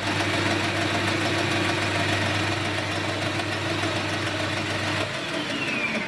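Small metal lathe running while it drills a hole in a steel part held in the chuck, the drill fed from the tailstock. About five seconds in the motor's hum stops and the lathe spins down with a falling whine.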